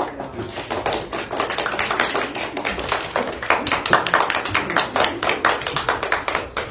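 Rapid, irregular tapping, many sharp taps a second, starting suddenly.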